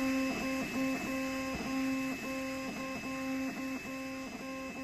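3D printer's stepper motors whining at a steady pitch, broken about three times a second by brief dips in pitch as the moves stop and start.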